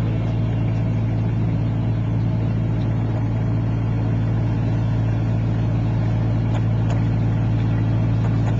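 Boat engine running steadily at cruising speed: a constant low hum with a fine, even pulse, with water noise from the boat's passage.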